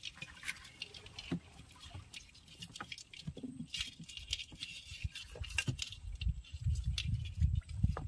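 Scattered light clicks, taps and drips as a baited crab line is hauled over the side of a small boat, with dull low thuds from handling and the boat growing denser near the end.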